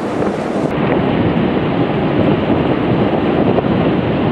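Wind buffeting the microphone in a loud, uneven rumble.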